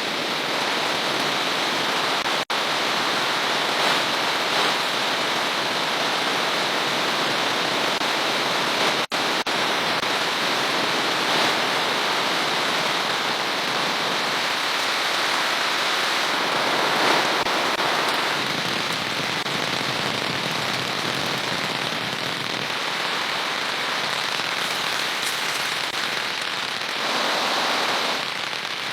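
Heavy rain falling steadily, an even hiss of countless drops. It breaks off for an instant twice in the first third.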